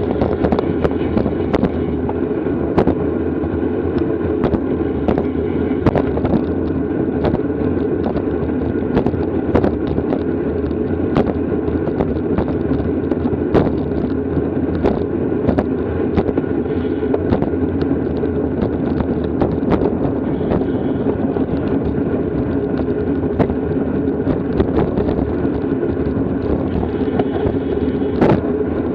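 Steady rushing wind and road noise from a bicycle moving at race speed, with frequent sharp clicks and knocks from bumps and rattles throughout.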